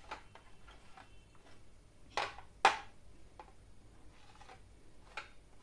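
Bowls knocking lightly on a serving tray as they are picked up and set down: a few short knocks, the two loudest about two seconds in and half a second apart, and one more near the end.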